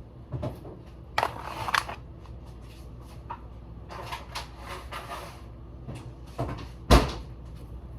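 Kitchen handling noises: scrapes and light knocks of utensils and a pan, with one sharp clunk about seven seconds in.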